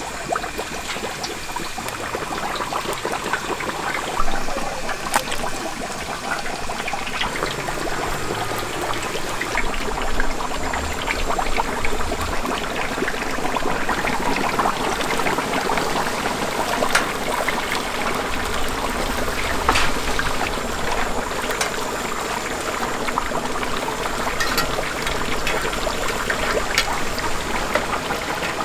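Chicken deep-frying in a cauldron of hot oil: a steady sizzle with scattered sharp pops and crackles.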